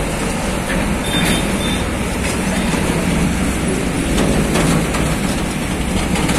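Truck towing an empty flatbed container trailer passing close by: steady engine and tyre noise with the bare steel trailer frame rattling, and a few scattered metallic clanks.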